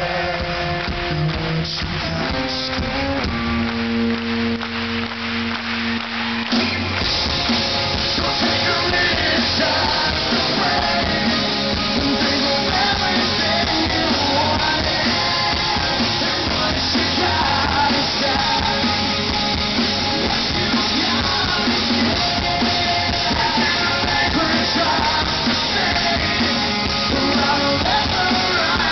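Live rock band playing through a PA, heard from the crowd: singing over held electric guitar chords, then the full band with drums comes in loudly about seven seconds in and plays on.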